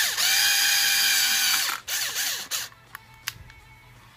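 Power drill with a 5 mm bit boring a hole in an RC car's suspension arm. The motor spins up and runs at a steady whine for about a second and a half, gives two short trigger bursts, then stops, leaving a couple of light clicks.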